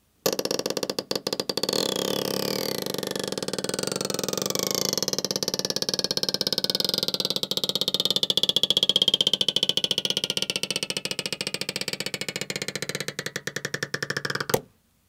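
Stretch-release adhesive strip under an iPhone 15 battery being slowly pulled out. It gives a rapid crackling creak, with thin whistling tones that slide slowly down in pitch, and it stops suddenly near the end.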